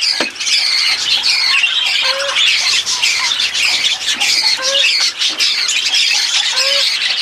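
A flock of budgerigars chattering and squawking without a break, with a short lower call repeating about every two seconds. A single knock sounds right at the start.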